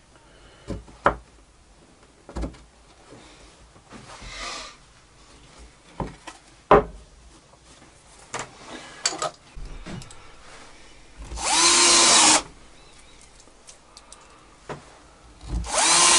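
Bosch cordless drill running into a stack of plywood layers in two short runs of about a second each, near the end. Before that, a few sharp knocks as the plywood pieces are handled and set down.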